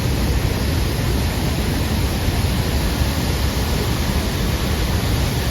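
Waterfall: water pouring and crashing in a loud, steady rush with a deep rumble.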